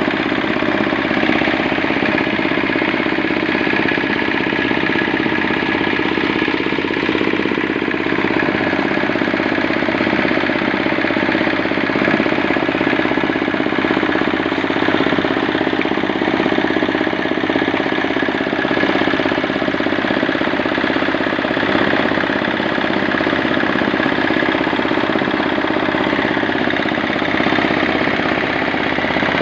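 8 hp diesel engine of a cement mixer running steadily at a constant speed.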